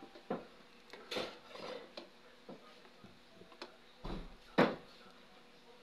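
A metal ladle stirring a thick coconut-milk stew in a cooking pot, knocking and scraping against the pot in scattered clicks, the loudest about four and a half seconds in.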